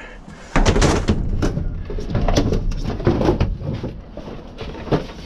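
Knocks, bumps and scraping from heavy household items being handled and moved, starting abruptly about half a second in and going on in a run of irregular knocks.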